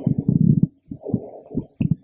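A woman's heartbeat heard through a stethoscope: low thumps in clusters about a second apart, with rumbling body noise picked up along with them.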